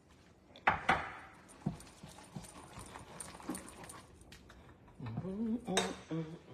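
A metal utensil knocking and scraping against a stainless-steel pot while thick soup is stirred, with two sharp knocks about a second in and another shortly after. Near the end comes a short vocal sound that rises in pitch.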